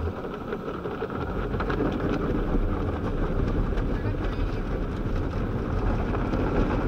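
Steady rushing noise of automatic car wash machinery (water spray, brushes or dryer blowers) heard from inside the car's cabin, with a deep rumble, growing slightly louder.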